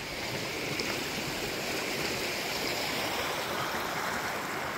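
Shallow brook running over a gravel and stone bed, a steady rushing of water.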